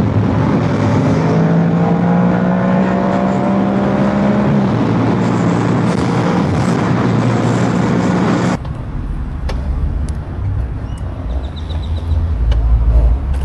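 Yamaha R7's parallel-twin engine running under way, heard through heavy wind noise on the camera's own microphone, its pitch rising slightly. About eight and a half seconds in the wind noise cuts off suddenly, leaving a low engine rumble and a few light clicks.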